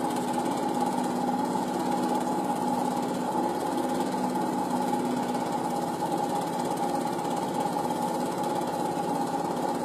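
Home-movie film projector running: a fast, even mechanical clatter with a steady hum under it.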